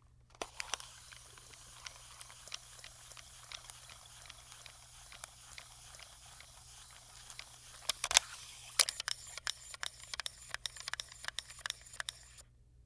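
VHS camcorder fast-forwarding its tape: a steady hiss and low hum with scattered clicks, which come thicker and louder in the second half before the sound stops shortly before the end.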